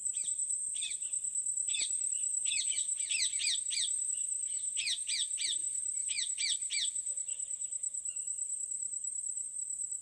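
A steady high insect trill runs throughout. Over it, a bird gives quick downward-sliding chirps in several rapid runs during the first seven seconds.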